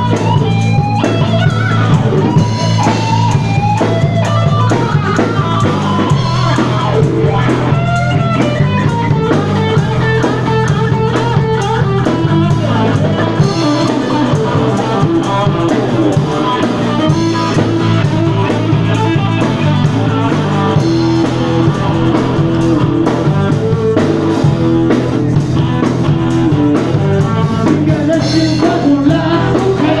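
Live electric blues-rock band playing loudly: electric guitar riffs over a repeating stepped low line, with a drum kit.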